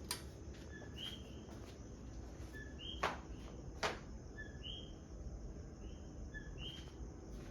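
A bird chirps repeatedly in a two-note call, a short lower note then a higher one, about every two seconds over a low steady hum. Two sharp clicks, about a second apart, stand out in the middle.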